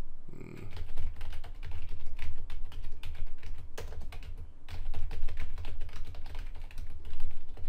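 Typing on a computer keyboard: rapid key clicks in quick runs, with a short lull about four and a half seconds in.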